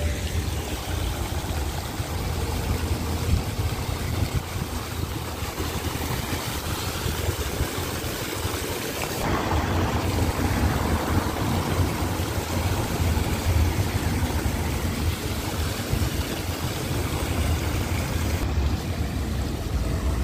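Outdoor street ambience with a steady low rumble. From about nine seconds in, a brighter rushing hiss of fountain jets splashing into a stone basin joins it.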